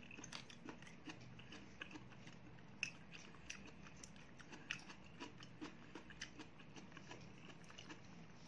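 Quiet chewing and mouth sounds of someone eating, with a scattering of small sharp clicks over a faint steady hum.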